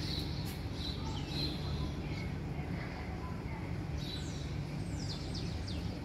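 Small birds chirping, with short high calls and quick falling notes, over a steady low rumble of outdoor background noise.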